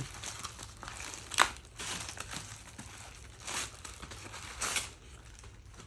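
Glued packaging being cut and torn open by hand: crinkling and rustling with a few louder bursts, the sharpest about a second and a half in.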